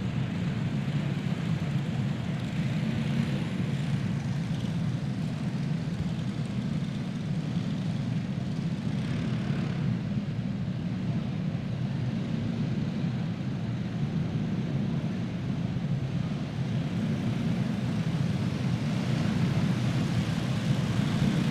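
A pack of dirt-track racing karts with single-cylinder Predator small engines running at low speed under a caution period, many engines blending into one steady sound.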